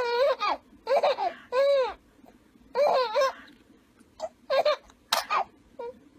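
Infant laughing in a run of short, high-pitched giggles, about eight bursts with brief pauses between them.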